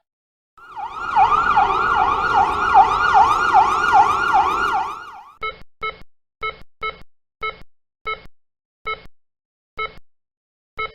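Emergency vehicle siren in a fast yelp, its pitch rising and falling about three times a second for roughly four and a half seconds. It is followed by about a dozen short, identically pitched beeps that come further apart towards the end.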